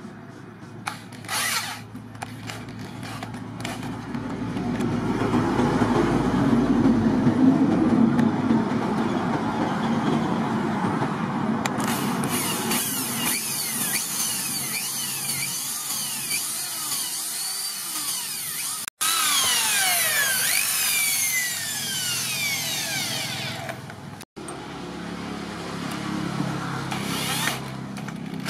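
Corded electric hand drill running under load as it bores holes into a hardwood knife-handle scale. Through the middle stretch come repeated high squeals that fall in pitch. The sound breaks off abruptly twice.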